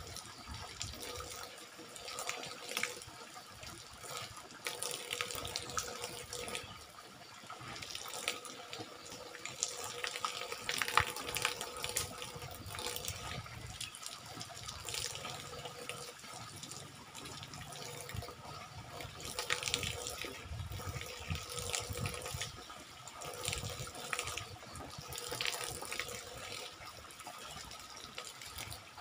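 A thin stream of water pouring from the spout of a homemade bamboo shower, running steadily and splashing irregularly as hands are washed under it.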